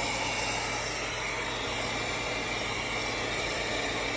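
Cecotec Conga robot vacuum cleaner running with a steady, even whir and a faint high whine; not noisy.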